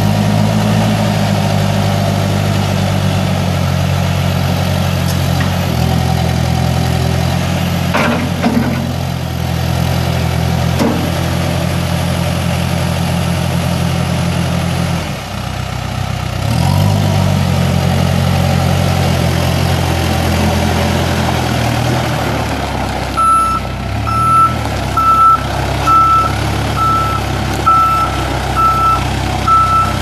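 2011 Case 580 Super N backhoe's four-cylinder turbo diesel engine running as the machine drives, dipping about halfway through and then picking up again. From a few seconds before the end, its backup alarm beeps steadily at about one and a half beeps a second as it reverses.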